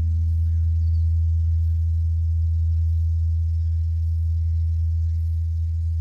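Large Korean bronze temple bell (beomjong) humming after a strike, a deep steady tone slowly dying away. Its higher overtones fade out near the start.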